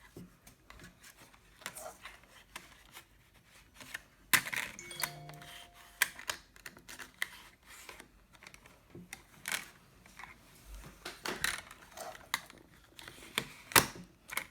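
Small plastic clicks, taps and knocks from handling a Canon Ivy mini photo printer while loading ZINK paper and snapping its paper cover shut, with sharper knocks about four seconds in and near the end. A short steady tone sounds about five seconds in.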